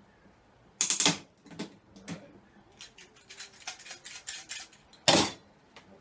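Metal hand tools and small hardware being handled: a run of small metallic clicks and rattles, with two louder clattering bursts, one about a second in and one about five seconds in.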